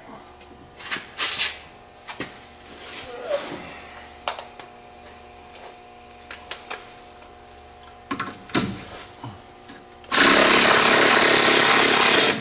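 Scattered light clicks and knocks of hand tools being handled, then a pneumatic shop tool runs in one loud, steady burst of about two seconds near the end.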